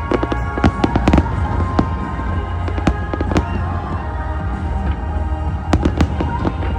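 Fireworks going off as sharp bangs and crackles in clusters, busiest about a second in and again near the end, over loud music played for the display.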